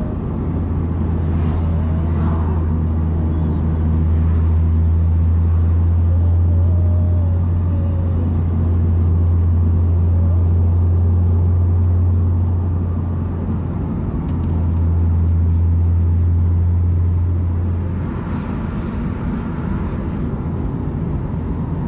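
Steady low rumble of a car being driven, heard from inside the cabin: engine and road noise that swells louder twice and eases off between.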